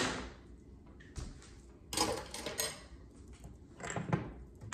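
A metal fork and seasoning containers clinking and clattering against a stainless steel Instant Pot insert: a few separate knocks, the busiest cluster about two seconds in.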